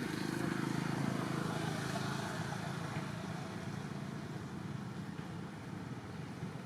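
A motor vehicle's engine running nearby, a low hum that swells in the first second or two and then slowly fades as it passes.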